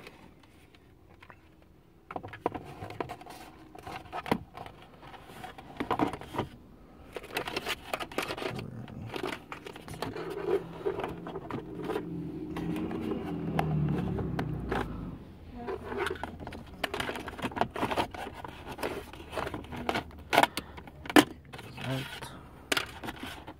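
Hard plastic center-console trim of a 2005 Mazda 3 being handled and fitted back around the cup holder: irregular clicks, knocks and scrapes, starting about two seconds in.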